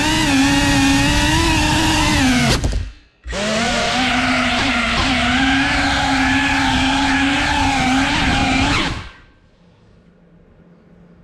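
FPV drone's brushless motors and propellers whining, heard from the camera on board, the pitch wavering with the throttle. The sound drops out for about half a second near three seconds in, then runs again until the motors stop about nine seconds in, leaving only faint background noise.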